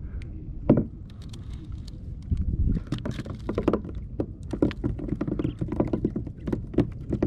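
Small fish just landed flapping and slapping on the plastic deck of a sit-on-top kayak, while the hooked rig is handled: a rapid, uneven patter of knocks and slaps, thickening about two seconds in, over a steady low rumble.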